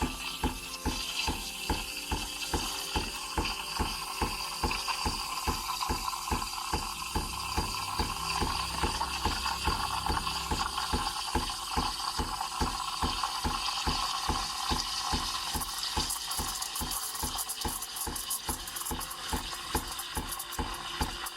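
Breville espresso machine running with liquid flowing, a steady mechanical rattle, over background music with an even beat.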